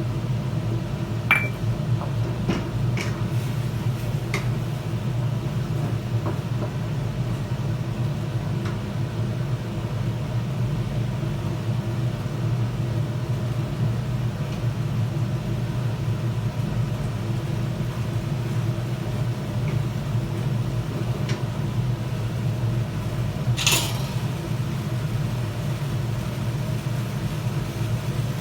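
Steady low kitchen hum, with a metal utensil clinking against the pan a few times in the first seconds and once more loudly near the end, as the stir-fry's sauce thickens with cornstarch.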